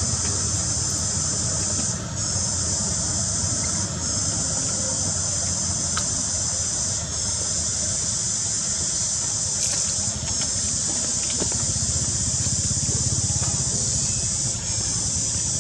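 Insect chorus: a loud, shrill, steady drone made of several high tones together, dipping briefly every two to three seconds, with a low steady rumble beneath it.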